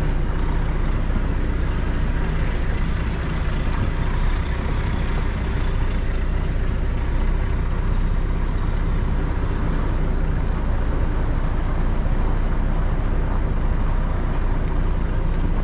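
Lorry's diesel engine running steadily with a low rumble as the truck crawls forward at low speed.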